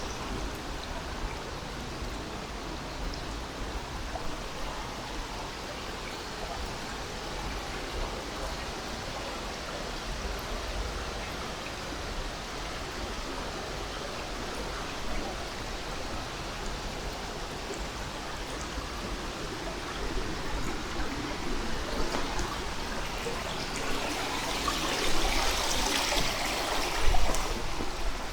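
Valley stream flowing, a steady rush of water that grows louder over the last several seconds.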